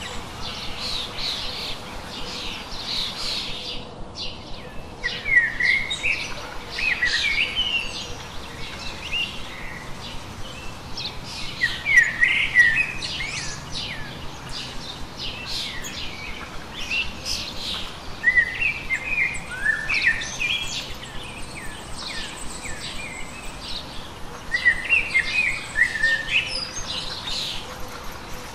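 Birds singing and chirping: many quick chirps and short song phrases, with louder phrases every six seconds or so.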